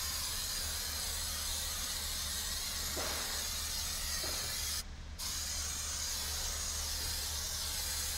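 Aerosol can of 3M General Trim Adhesive spraying glue in a steady hiss, with a short break about five seconds in.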